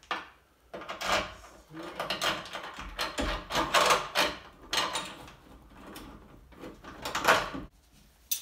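Metal exhaust pipe being pushed and twisted up into place under a Mazda RX-8, knocking and scraping against the car's underside in a run of irregular clunks and scrapes.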